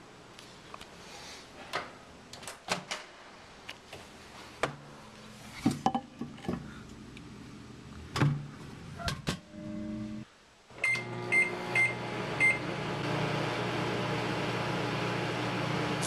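Clicks and knocks of a GE turntable microwave oven being handled, its door opened and shut. After about eleven seconds come four keypad beeps, and the oven starts running with a steady hum that grows louder.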